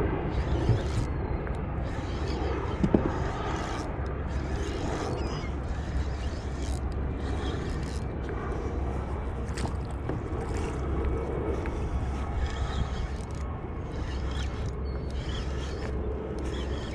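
Spinning reel being cranked against a hooked small striped bass, a steady rustling, scraping noise with a low rumble under it and a few small clicks.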